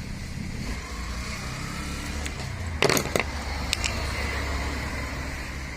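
Steady low rumble of background motor traffic, with a few sharp clicks of small metal carburetor parts and hand tools being handled during disassembly, the loudest a pair about three seconds in.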